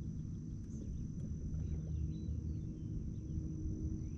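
Quiet outdoor lake ambience from a fishing boat: a steady low rumble, faint short bird-like chirps, and a thin steady high-pitched whine.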